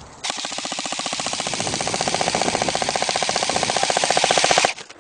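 Airsoft electric gun firing one long full-auto burst: a fast, even rattle of shots that starts abruptly, grows louder and stops suddenly after about four and a half seconds.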